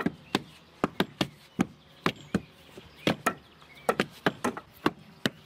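Two wooden hand rammers, blunt-ended tamping posts, striking moist earth packed into timber formwork in an uneven, interleaved rhythm of sharp knocks, two or three a second: earth being compacted layer by layer into a rammed earth wall.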